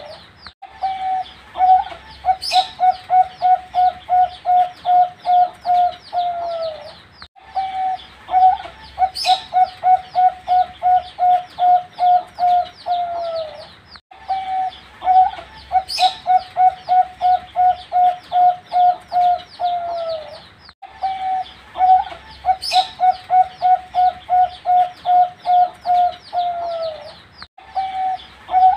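Young zebra dove (perkutut), about four months old, cooing. It gives about four repeated song phrases, each a held note, a fast run of short coos at about three a second, and a falling final note, with one sharp click in each phrase.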